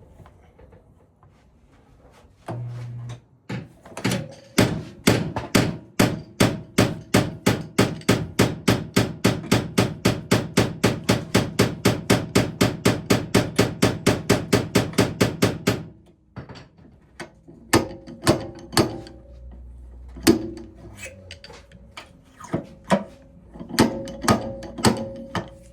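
Hammer blows: a rapid, steady run of about four strikes a second lasting some twelve seconds, then a pause, then a scatter of single blows near the end.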